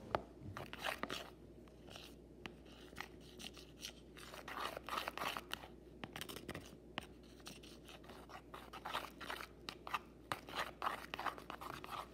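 Plastic utensil stirring thick shampoo-and-salt slime in a plastic bowl: a run of short, irregular scrapes and sticky clicks against the bowl.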